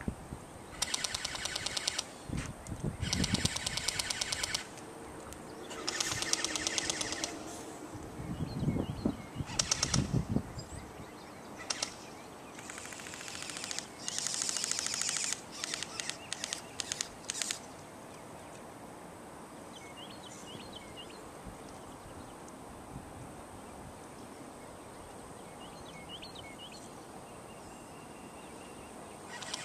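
Airsoft electric guns firing rapid full-auto bursts, about six bursts of a second or two each over the first half, then the firing stops.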